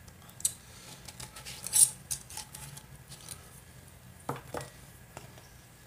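A few short, sharp clicks and light clinks of small hard objects being handled, the loudest just before two seconds in: a tobacco pipe being set down and a small glass jar of pipe tobacco being picked up.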